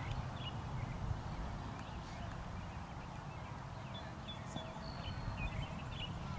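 Small birds chirping now and then in short high notes, over a steady low rumble.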